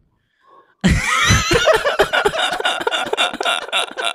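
Hearty laughter, a rapid run of laugh bursts that breaks out about a second in.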